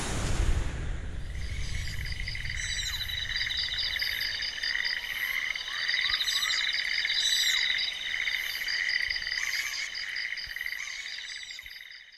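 Night chorus of frogs and insects: steady, pulsing trills layered at several pitches, with short chirping calls over them, opening with a low rumble and fading out near the end.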